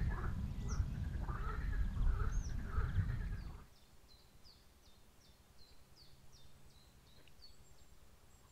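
Low wind rumble on the microphone, with bird calls and high chirps over it. About three and a half seconds in the rumble cuts off suddenly, leaving a small bird's short high chirps, two or three a second, over quiet.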